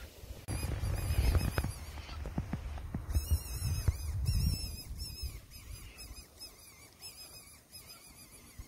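Fox whistle blown in a series of high, wavering squeals that imitate a rabbit in distress to lure a fox in. The squeals start about half a second in and come in repeated bursts, the strongest a few seconds in, over a low rumble.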